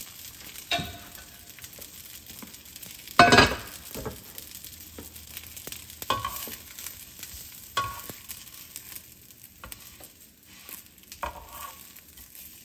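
Panko-crusted chicken cutlets frying in a nonstick skillet with a steady low sizzle, while metal tongs turn them, knocking and clinking against the pan several times. The loudest metallic clank comes about three seconds in.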